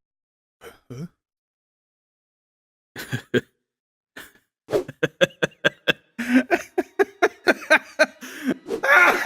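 A voice making a run of short coughs and gasps, coming quicker and louder over the last few seconds.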